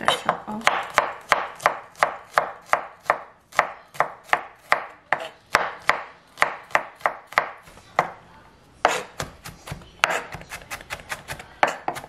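A santoku-style kitchen knife chopping peeled garlic cloves on a wooden cutting board. It gives sharp, even knocks about three a second, then after a short pause faster, lighter mincing strokes near the end.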